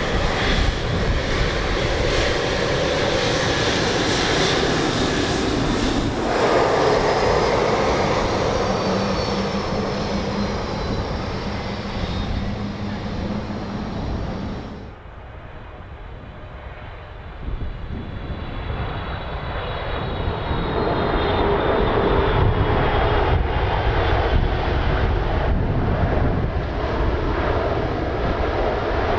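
Jet airliner engines running loudly, with a high whine that slowly falls in pitch. About halfway the sound cuts off abruptly, and after a short lull another jet's engine noise swells up.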